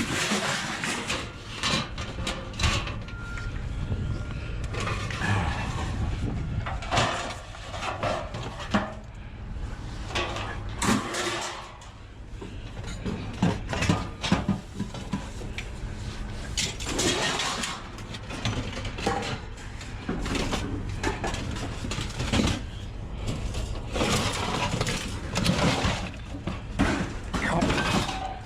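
Scrap metal pieces clanking and rattling as they are handled and tossed, in many irregular knocks and clatters over a steady low rumble.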